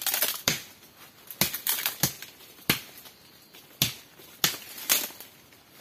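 Firewood being broken up by hand for a cooking fire: about ten sharp snaps and cracks at irregular intervals, with rustling between some of them.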